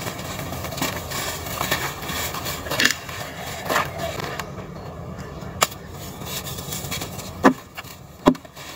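Lumps of dry red dirt crumbling between the hands and sifting down onto loose powder in a plastic basin: a gritty, grainy crumbling, with a few sharp snaps as lumps break, most of them in the second half.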